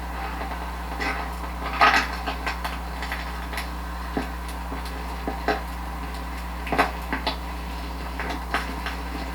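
Metal cooking utensils clicking and scraping against a pan or grill while grilled rice-paper 'pizza' (bánh tráng nướng) is cooked, in irregular sharp knocks, the loudest about two seconds in, over a steady low hum.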